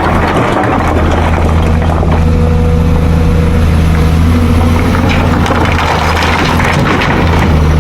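Excavator's diesel engine running steadily with a deep, even hum, with some scattered short knocks over it.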